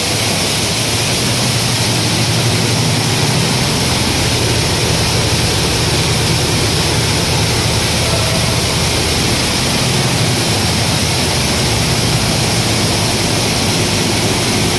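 Grain-cleaning plant running: destoner, grader, bucket elevator and blower fans working with grain passing through, a steady low hum under a loud rushing hiss.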